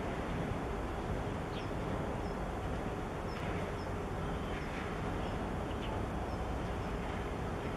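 Steady outdoor harbour rumble and hiss with a faint steady hum, and faint short high bird chirps now and then.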